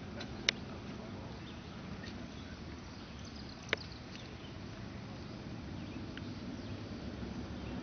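Outdoor background noise, steady and low, broken by two sharp clicks about three seconds apart.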